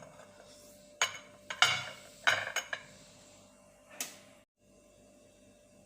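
Small metal teaspoon clinking and scraping against a container while scooping ground cloves. There are a few clinks and scrapes between one and three seconds in, and a last sharp clink at about four seconds.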